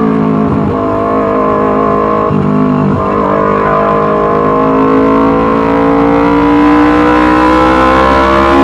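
Yamaha R25's 250 cc parallel-twin engine running loud through a Racefit Slash aftermarket exhaust; the pitch dips briefly twice in the first few seconds, then climbs slowly as the revs build.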